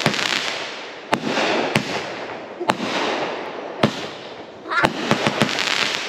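Backyard consumer fireworks cake firing shot after shot: a loud bang about once a second, each followed by a crackling hiss that fades, with a quick flurry of pops about five seconds in.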